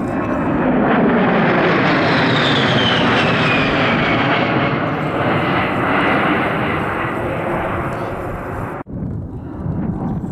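An A-10 Thunderbolt II's twin TF34 turbofan engines passing overhead: loud rushing jet noise, with a whine that falls in pitch as the jet goes by. The sound breaks off abruptly near the end and jet noise picks up again.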